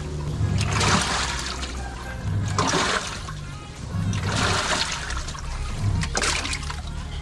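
Sharp automatic washing machine running its wash cycle: water swishing in the tub in surges roughly every two seconds as the wash action turns back and forth.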